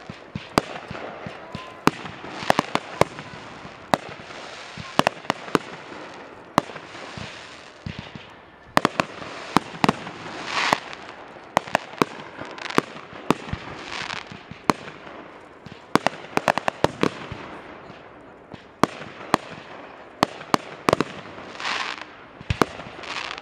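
Fireworks display going off: dozens of sharp bangs, sometimes several close together, over a constant crackle, with hissing swells that rise and fade every few seconds.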